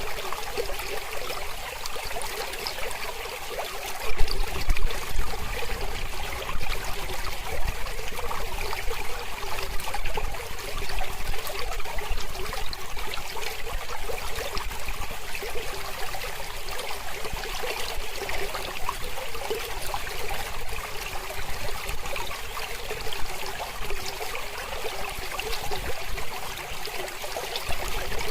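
Mountain river flowing steadily, a continuous rush and trickle of water that swells briefly about four seconds in.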